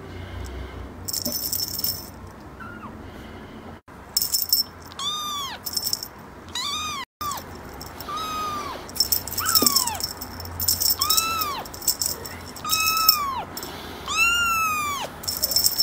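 Young kitten meowing again and again, high thin calls that rise and fall, about one every second or two from about five seconds in. Small bells on a cat wand toy jingle in short bursts between and under the calls.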